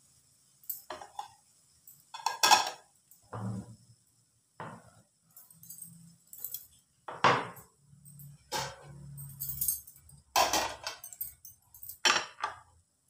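Kitchen items being handled on a counter beside a stove: a string of about ten separate clinks and clatters, the loudest a couple of seconds in.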